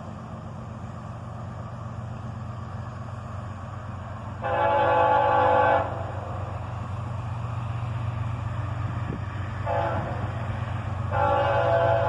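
Approaching CSX diesel freight locomotive: a steady low engine rumble that grows slowly louder, with its air horn sounding a long blast, a short one, then another long one, the end of a grade-crossing signal.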